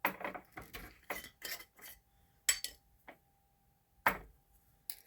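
Measuring spoon clinking and scraping against a spice jar and mixing bowl while pumpkin spice is spooned out. A quick flurry of taps comes first, then a few single clinks.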